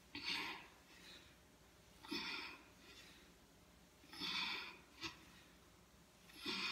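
Heavy breathing of a woman doing dumbbell squats: a strong breath about every two seconds, in time with the squats, each followed by a softer one. A short click about five seconds in.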